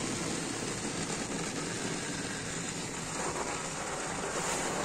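Automatic car wash spraying water and foam over the car's windshield and body, heard from inside the cabin: a steady rush of spray.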